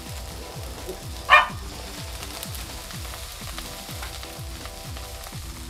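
Water sizzling and steaming on a hot flat-top griddle under a stainless steel melting dome, steaming a grilled cheese sandwich to melt the cheese. It is a steady sizzle with one brief louder burst about a second and a half in, over background music with a steady beat.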